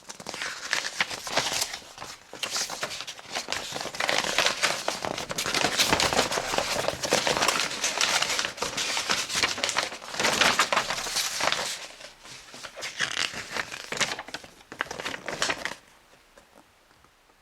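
Packaging being handled and opened, with continuous crinkling and crackling that stops abruptly about sixteen seconds in.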